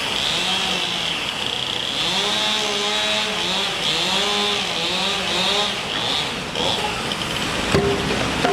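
A power tool's motor runs with a steady high whine. Its pitch swings up and down about twice a second as it loads and unloads, over the hum of traffic, and there is a sharp knock near the end.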